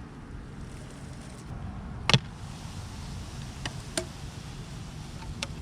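Wooden beehive parts being worked apart: one loud sharp crack about two seconds in, then a few lighter clicks and knocks, over a low steady background.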